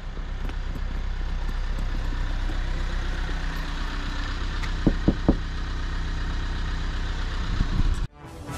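Car engine running steadily at low speed with road noise, a low even hum; three quick knocks about halfway through. The hum cuts off suddenly near the end.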